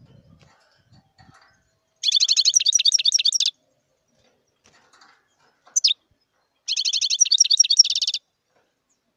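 European goldfinch singing: two rapid trilled phrases of about a second and a half each, with a single short call falling in pitch between them.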